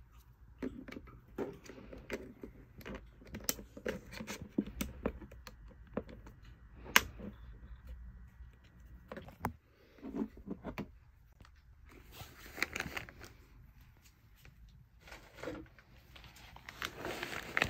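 Close handling sounds of a camera: a string of small clicks and knocks as it is turned over in the hand with its battery compartment door open, then fabric rustling near the end as things go into a cloth bag.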